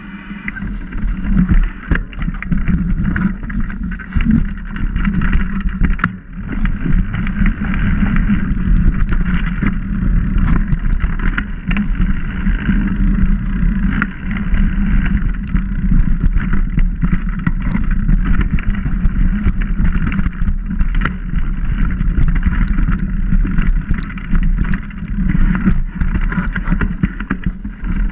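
Mountain bike riding over a bumpy dirt trail, picked up by a bike-mounted camera: a steady rumble of tyres and wind with many small knocks and rattles as the bike hits bumps.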